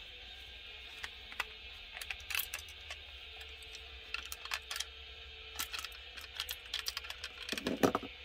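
Small plastic parts clicking and tapping as a screwdriver and fingers work a plastic model-car display stand to free the car from it. The clicks come irregularly, in short clusters, with a louder knock near the end.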